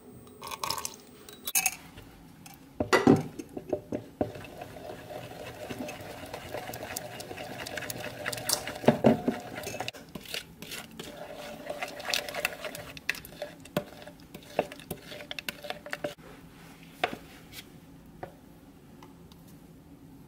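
Spoon clinking and scraping against a bowl while stirring a thick sour-cream mixture, with a few sharp knocks in the first three seconds, the loudest about three seconds in. The stirring thins to scattered clicks in the last few seconds.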